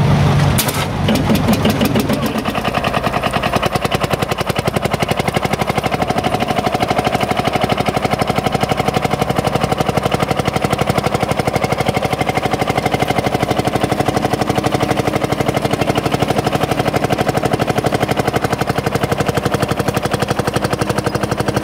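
A 1949 Field Marshall Series 2 single-cylinder two-stroke diesel tractor engine fired off with a shotgun-shell starting cartridge: one sharp bang about half a second in, then the engine catches and runs with a steady, rapid chugging beat.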